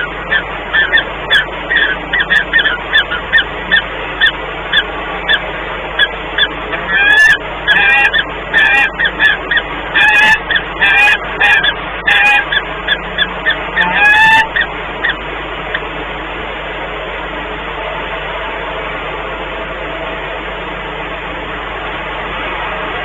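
Peregrine falcon pair calling to each other in the nest box, typical of courtship bonding. Short calls repeat quickly, a couple or more a second. About seven seconds in they grow louder and longer, with rising notes, and they stop about halfway through, leaving a steady background hiss.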